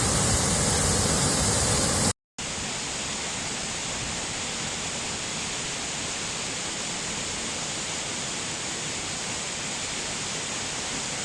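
A waterfall rushing steadily. About two seconds in it cuts out for a moment and returns quieter, with less deep rumble.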